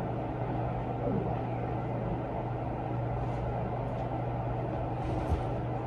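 Steady low hum over faint background hiss, with a faint tick near the end.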